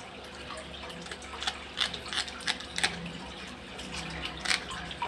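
Scissors snipping through a small dead fish, a handful of short sharp clicks at irregular intervals, over a steady background of trickling aquarium water and a low hum.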